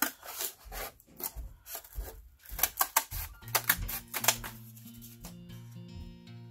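Scissors snipping through corrugated cardboard, a quick run of sharp cuts. About halfway in, background music with held notes comes in under the cutting.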